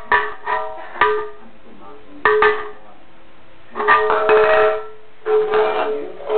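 Musical toy playing short bursts of tinkly, plucked-sounding notes, about five little phrases with pauses between them.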